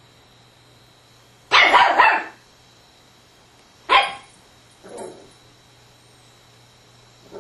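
Yorkshire terrier barking excitedly at a small bug: a loud burst of barking about a second and a half in, a sharp single bark a couple of seconds later, then a softer one.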